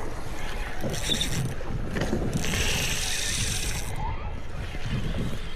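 Wind buffeting the microphone over a boat's steady low rumble, with two bursts of high mechanical ratcheting from a fishing reel: a short one about a second in and a longer one from about two to four seconds in.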